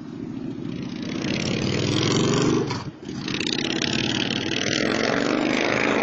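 A road vehicle's engine accelerating, growing loud over the first couple of seconds, dropping away sharply for a moment about three seconds in, then running loud again.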